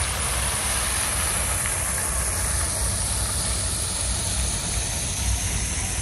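Steady outdoor noise: an even hiss over a low, fluctuating rumble, with no distinct events.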